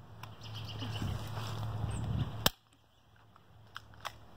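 Airsoft pistol firing: a rising rustle, then one sharp crack about two and a half seconds in, and a couple of fainter clicks near the end.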